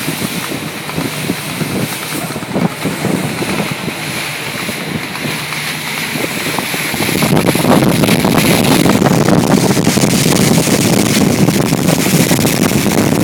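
Motorised outrigger boat under way at sea: engine running, with water rushing and splashing along the hull and outriggers and wind buffeting the microphone. It grows louder about seven seconds in.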